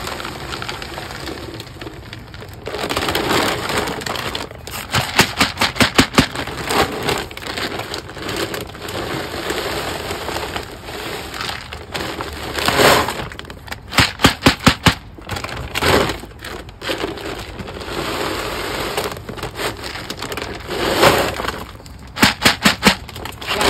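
Dry dog kibble pouring from its bag into a hard plastic Vittles Vault storage container: a continuous rattling pour that swells and eases, broken by several spells of quick clattering.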